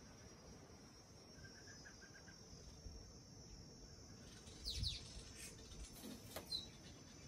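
Faint outdoor ambience: a steady high insect hum with a few scattered bird chirps, the loudest a quick falling chirp with a soft thump a little past halfway through.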